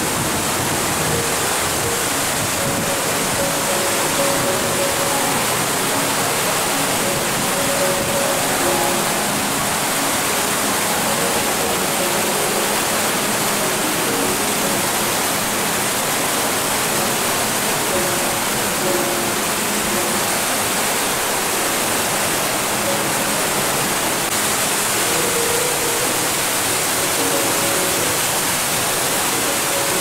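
Steady, dense rush of a waterfall: white water pouring over a rocky lip and down a cascade. Faint background music with soft melody notes sits under the water noise.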